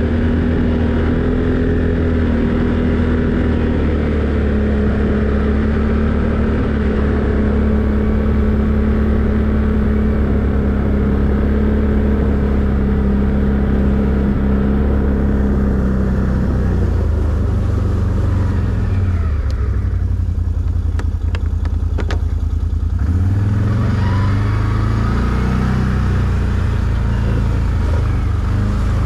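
ATV engine running steadily under way. About two-thirds of the way through, it drops back to low revs for a few seconds with a few sharp clicks, then picks up again.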